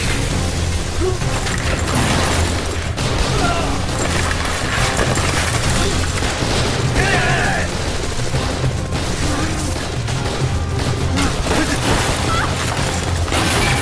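Movie gunfight soundtrack: rapid gunfire and impacts laid over dramatic score music.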